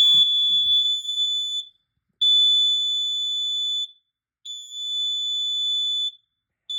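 Carbon monoxide alarm sounding on its test button: three long, high-pitched tones of about a second and a half each with short gaps, then a quick run of short beeps starting near the end.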